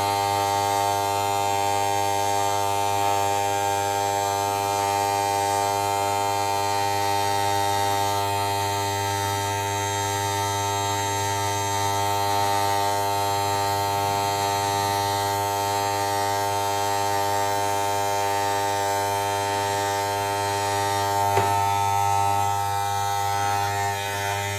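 Wahl 9243-4724 corded hair clipper running with a steady buzz as its blade is run through forearm hair. A brief click sounds near the end.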